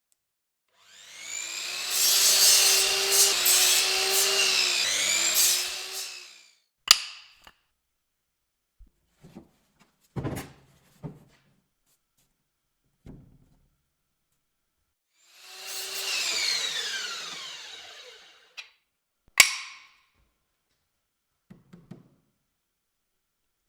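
A handheld power tool working wood, run twice: once for about five seconds, then again for about three seconds with its pitch falling as it winds down. Sharp clicks and a few light knocks come between the runs and after them.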